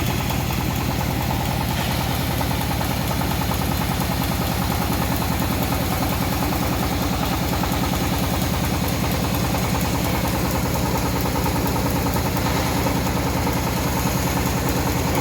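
Engine driving a homemade bandsaw sawmill, running steadily with an even, fast beat.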